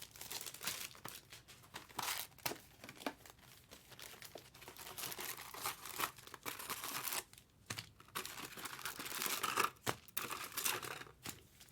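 Foil wrappers of trading card packs crinkling and tearing as the packs are opened by hand, in irregular scratchy bursts.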